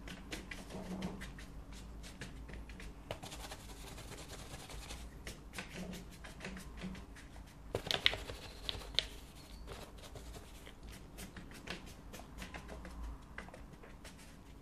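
Faint scratchy brushing of a large flat watercolour brush's bristles dragged across watercolour paper in short strokes, with a few sharper taps about eight seconds in.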